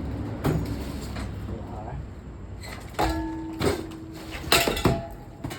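Hunter Piedmont ceiling fan running with a low hum, broken by several sharp knocks and clatters, a cluster of them about four and a half to five seconds in.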